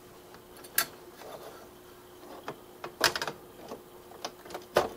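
A few sharp clicks and light metal rattles as the perforated sheet-metal hard drive cage of an HP TouchSmart all-in-one PC is worked loose by hand, with a short cluster of clicks about three seconds in.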